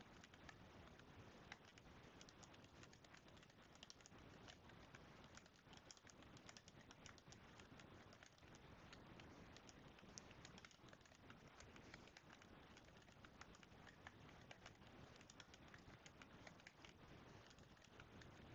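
Faint, quick, irregular clicking of computer keyboard keys being typed.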